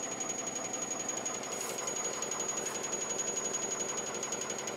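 International D1310 truck idling, with a steady high-pitched ringing from loose bolts on the hand winch on the truck bed, rattling with the idle vibration.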